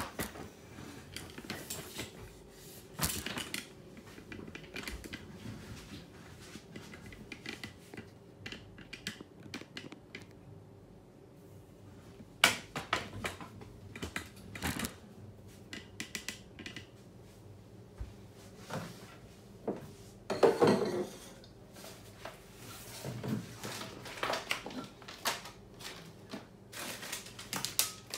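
Handling noise from a camera phone being picked up, moved and set back in place: scattered clicks, knocks and rubbing. Two louder knocks come about twelve and twenty seconds in.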